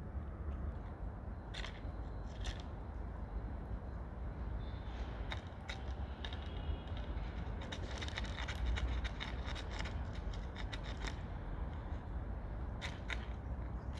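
Cats eating, with irregular crisp clicks and crunches that come thickest in the middle, over a steady low rumble.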